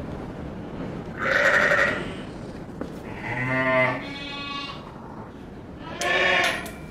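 Sheep bleating three times: a harsh bleat about a second in, a longer, lower-pitched bleat in the middle, and another harsh bleat near the end.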